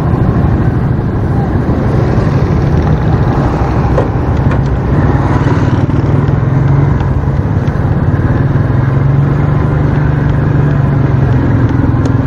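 Small motorcycle engine running steadily at low road speed, heard from the rider's seat; its note climbs a little near the end as it speeds up.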